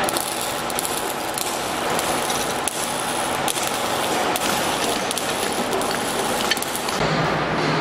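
Steady hiss of workshop noise with scattered light metallic clicks as a sheet-steel cover plate is handled against a steel lift column.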